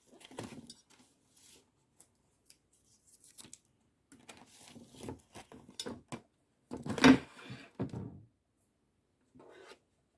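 Scattered clinks and knocks of dishes and utensils being handled, in short irregular bouts, with the loudest clatter about seven seconds in.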